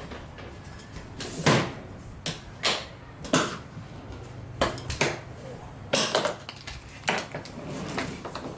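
Irregular knocks and clatters of hard objects being handled, about a dozen spread unevenly over several seconds.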